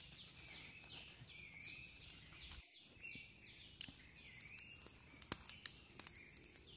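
Faint forest bird calls, a quick run of short repeated chirps, with scattered small crackles from a smouldering leaf fire. The sound drops out briefly about two and a half seconds in.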